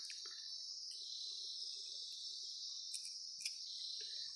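Insects chirring steadily in one continuous high-pitched drone, with a couple of faint clicks a little after the middle.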